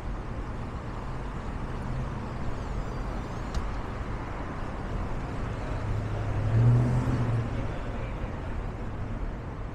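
City street traffic: motor vehicles running steadily, with one engine's low hum swelling louder for a moment about two-thirds of the way through, then fading.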